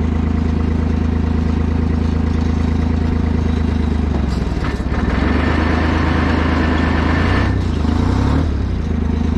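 Rough-terrain forklift's engine running steadily under load, its note changing about five seconds in and again about eight seconds in.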